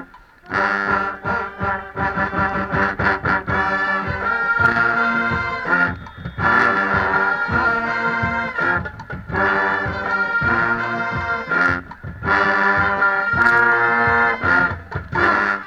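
Marching band in the stands playing a stand tune, led by loud brass with low brass prominent: a run of short punchy notes, then held chords. The tune cuts off at the end.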